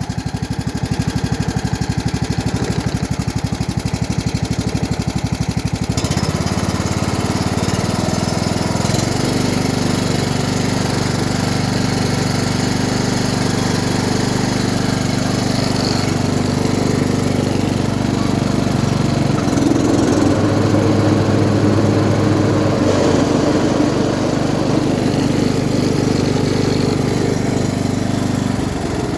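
Single-cylinder Briggs & Stratton petrol engine of an MTD Optimal F130 riding mower running steadily just after starting, its engine note shifting a few times, about six and nine seconds in and again later.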